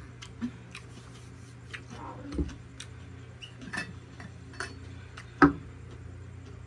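Light clicks and clinks of a small glass cup and a stainless-steel water bottle being handled, with a louder knock a little after five seconds in.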